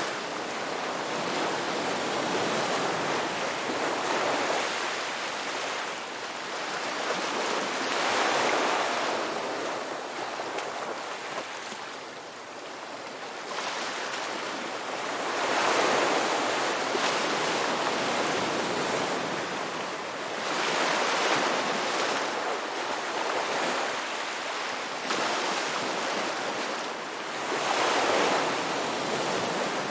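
Ocean waves breaking and washing up a beach, the surf swelling and easing every five to seven seconds.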